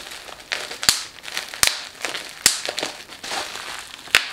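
Bubble-wrap pouch crinkling as it is handled and pulled at to open it, with four sharp pops spread through the crinkling.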